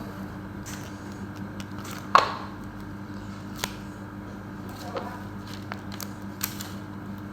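Scattered small clicks and taps from hands working a toy sticker set, with one louder knock about two seconds in, over a steady low hum.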